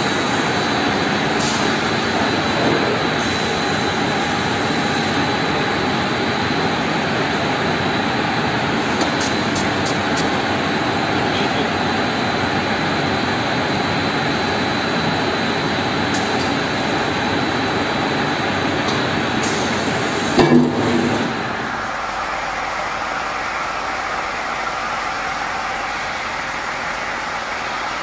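Multi-saw circular-saw cant machine and its feed line running: a steady, loud din of electric motors, chain conveyors and spinning saw blades. About two-thirds of the way through there is a brief louder burst, after which the noise settles to a lower, steadier hum.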